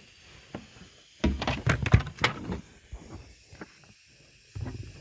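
A quick cluster of knocks, clicks and rattles about a second in, then a few single clicks near the end: hard parts being handled and set down.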